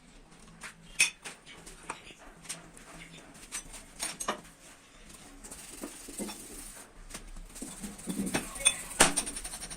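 Irregular metallic clinks and knocks, like tools and metal parts being set down and handled, with the sharpest knocks about a second in and near the end.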